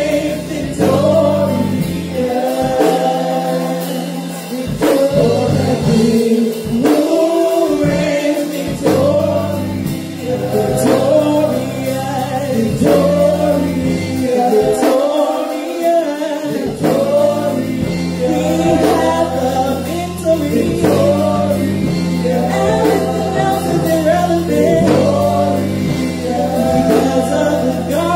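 Live gospel praise singing: several women's voices sung into microphones over sustained keyboard chords and bass notes, with a steady beat.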